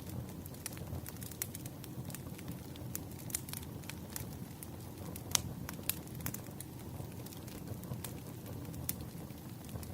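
Wood fire crackling: a steady low rush of burning logs with frequent sharp pops and snaps, the loudest a little past halfway.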